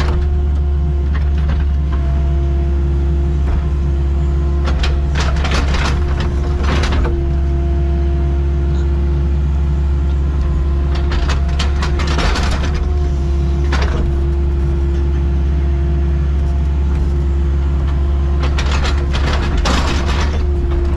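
Excavator's diesel engine running steadily with a constant whine from the hydraulics, broken by three short spells of harsh noise about five, twelve and nineteen seconds in as the machine works.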